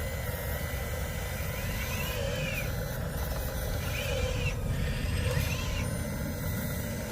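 Electric motors and gearboxes of radio-controlled construction trucks whining steadily over a low rumble. Three short whines rise and fall in pitch, at about two, four and five and a half seconds in.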